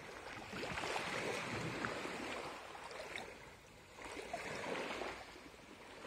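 Sea water washing in on the shore, the wash swelling twice and easing off between.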